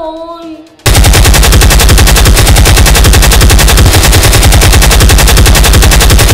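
Rapid automatic machine-gun fire, a very loud, evenly spaced stream of shots starting about a second in and cutting off abruptly.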